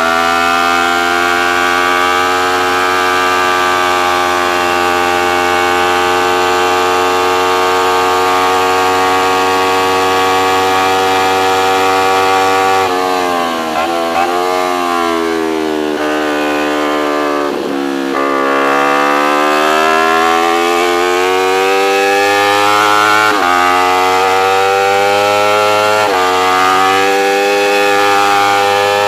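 Racing motorcycle engine at high revs, heard from the bike while lapping a track. The pitch holds high and steady at first, then falls and climbs several times with a deep dip about two-thirds through, and near the end it twice drops sharply and climbs again.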